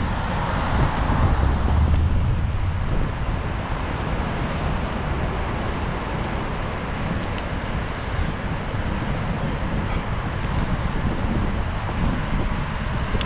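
Wind rushing and buffeting on a GoPro Hero7's microphone while riding a bicycle, a steady rumbling rush that swells briefly about one to two seconds in.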